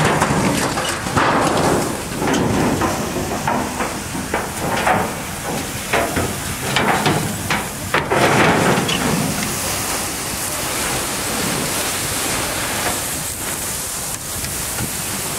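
Fire hose jet spraying water onto a large fire of burning debris: a steady hiss and rush of water with many sharp crackles and snaps from the blaze. The snaps are densest in the first half and thin out to a steady hiss after about ten seconds.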